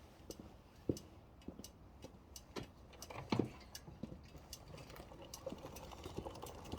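Faint, irregular clicks and taps, with no engine running.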